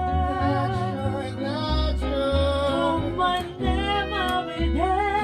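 A small live band playing: upright double bass sounding long low notes under a sliding, sung-like melody line, with piano and occasional cymbal strokes from the drum kit.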